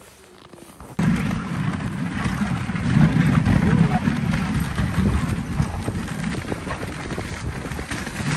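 A dog sled setting off about a second in: a continuous rushing scrape of the runners over packed snow, with the sled dogs' footfalls.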